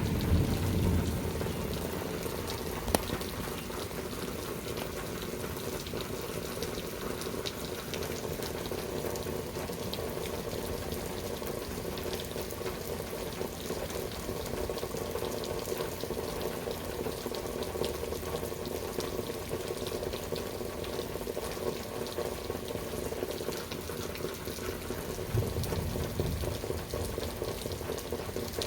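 Steady rain falling, with many small drops pattering close by. A low thunder rumble dies away in the first second, and a weaker low rumble comes near the end.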